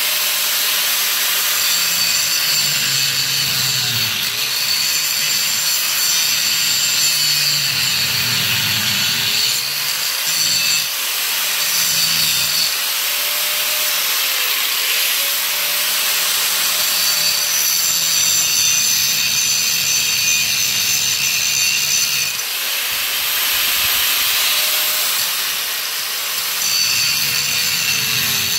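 Angle grinder running and grinding down a bus seat's floor bolt, throwing sparks; a steady gritty hiss with a high whine, the motor's pitch dipping every few seconds and recovering.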